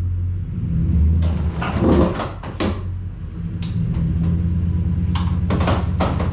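Tandem-axle boat trailer's leaf-spring suspension popping and creaking while being backed through a tight turn. There is a string of sharp pops and clunks, several close together in the first few seconds and again near the end, over the steady hum of the tow vehicle's engine. The noise comes from the equalizer and spring hangers turning on dry, ungreased bolts.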